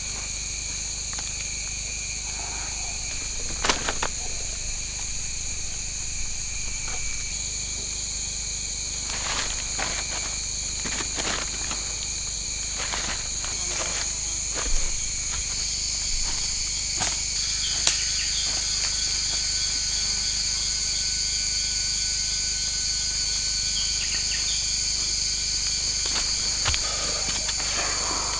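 Steady chorus of forest insects, several high unwavering buzzing tones at once, with another high buzz joining about halfway through. Over it, scattered sharp crackles and snaps of bare feet and hands moving through dry leaf litter and twigs.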